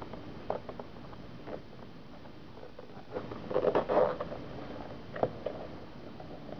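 A hard-shell zippered case for a 2.5-inch hard drive being handled: a few light clicks and taps, then a louder burst of scratchy rustling about three and a half seconds in, and a single sharp click a little after five seconds.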